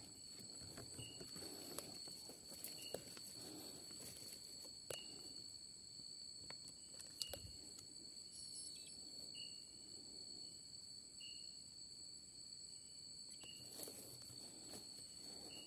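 Night insects droning steadily at a high pitch, with a short chirp repeating about once a second or so. Footsteps rustle through leaf litter and undergrowth, with a few sharp twig snaps.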